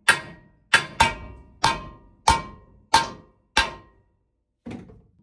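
Hammer striking steel on a car's body mount: seven ringing metal blows about two-thirds of a second apart, then a fainter knock near the end.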